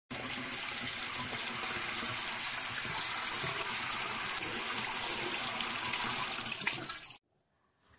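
A steady rushing, hissing noise that ends abruptly about seven seconds in.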